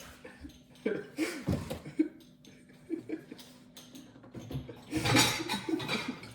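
Low voices and chuckling, with scattered light clicks and knocks of kitchen utensils being handled.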